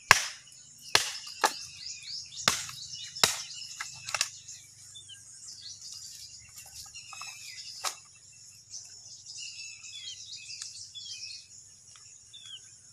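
Heavy cleaver chopping into a skinned cow head: about six sharp blows in the first four seconds and one more near eight seconds. Birds chirp throughout, most plainly in the second half.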